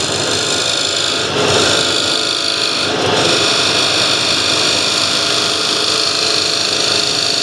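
Skew chisel cutting into a spinning wooden blank on a homemade wood lathe: a steady scraping hiss over the running lathe, easing off briefly twice, about a second and a half in and again at three seconds.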